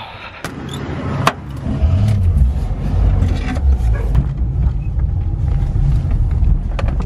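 Volkswagen Kombi van heard from inside the cab as it drives off: a couple of sharp clicks, then from about two seconds in the engine gets louder and runs on steadily with road noise.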